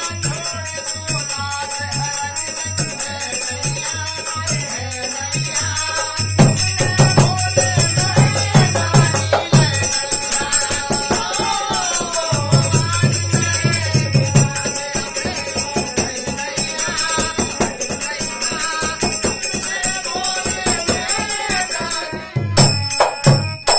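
Indian devotional bhajan music: a melodic line over a steady drum beat, with continuous jingling percussion. The music breaks off and starts again near the end.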